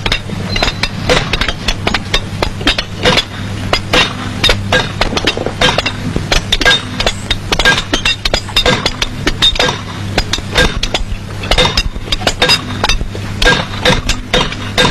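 Sledgehammers striking steel drill rods held against rock, hand-drilling holes: many sharp metallic clinks in quick, irregular succession from several hammers at once, over a low steady hum.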